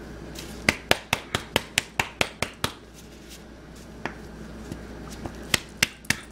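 A spice container shaken hard over a pot, giving rapid sharp knocks about five a second: a run of ten or so, a lone knock, then another run starting near the end.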